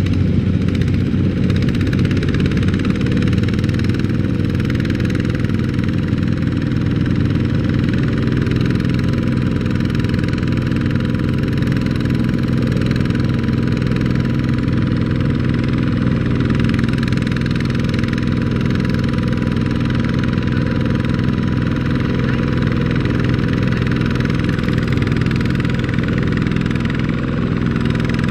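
Two-wheel walking tractor's single-cylinder diesel engine running steadily as it hauls a loaded trailer through deep mud.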